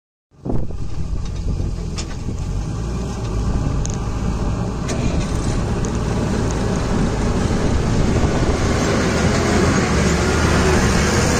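Engine of a loaded lorry running under load as the truck drives off over rough dirt and passes close by, growing louder toward the end. The sound comes in after a brief drop to silence at the very start.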